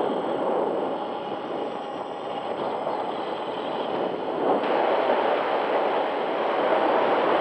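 Onboard sound of a twin-motor foamboard RC plane in flight: a steady rush of wind over the camera mixed with the drone of its two Lumenier 2350kv brushless motors spinning 6x4 props, getting a little louder about two thirds of the way through.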